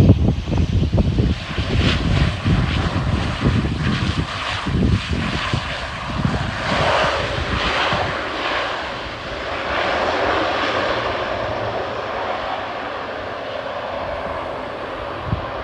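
Airliner engines running, loud throughout. Uneven low rumbling fills the first few seconds, then a steadier, higher engine sound takes over from about the middle.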